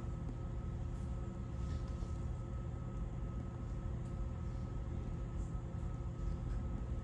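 Steady hum inside a stationary Keio 5000 series electric train's car: onboard equipment and ventilation running with several constant tones while it stands at a stop signal, with a few faint ticks.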